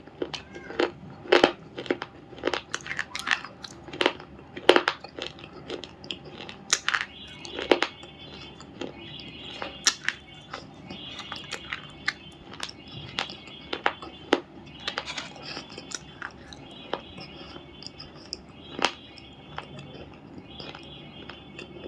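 Black unshaped stone, a brittle crumbly block, being crushed: dense, irregular crisp cracks and crunches over a fine crackle, sparser in the second half.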